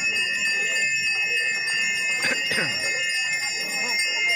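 Bells ringing steadily, several sustained ringing tones layered together.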